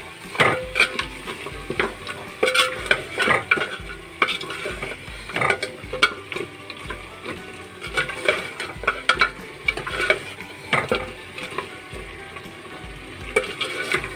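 A ladle stirring and scraping mutton masala in a metal pot, with irregular scrapes and knocks against the pot's side, over the low sizzle of the onions, tomatoes and meat frying.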